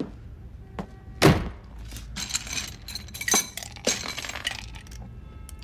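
Glassware clinking: a tumbler and liquor bottles knocking together as a drink is poured at a bar cart. A louder clunk comes about a second in, then a busy run of clinks with sharp ones about three and four seconds in.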